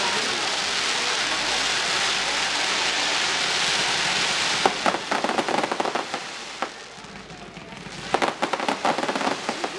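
Fireworks display: a dense, steady crackling hiss like heavy rain for the first four and a half seconds, then a run of sharp pops and crackles that eases off briefly about seven seconds in before a fresh burst of crackling.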